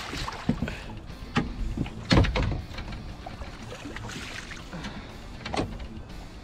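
Hybrid striped bass being landed by hand over the side of a boat: a string of irregular knocks and splashes as the fish is grabbed and lifted, the loudest a deep thump about two seconds in.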